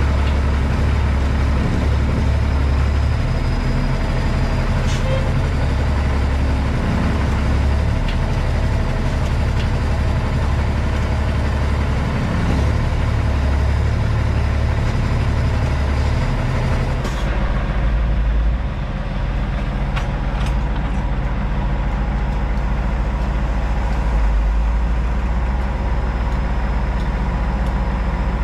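Cummins ISX diesel engine of a Peterbilt 379 running at low speed, a steady low rumble. About two-thirds of the way in the sound shifts, the hiss above the rumble dropping away.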